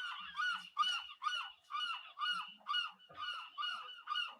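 Gull calling in a rapid, even series of short, harsh, downward-bending cries, about two a second.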